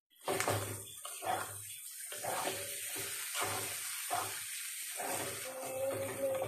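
Beef tripe sizzling in hot oil and spice paste in a wok, with a metal spatula stirring and scraping through it in strokes about twice a second.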